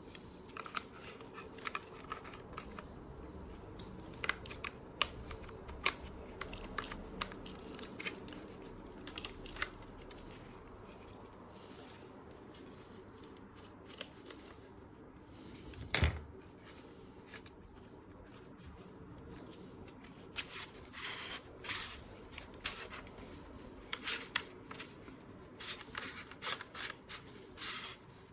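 Small clicks, taps and rustles of objects being handled at close range, with one louder thump about halfway through and busier clicking near the end.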